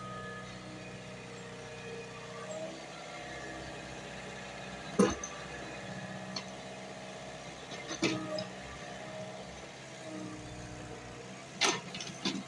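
JCB excavator's diesel engine running steadily under load, with sharp clanks: a loud one about five seconds in, another around eight seconds, and two close together near the end.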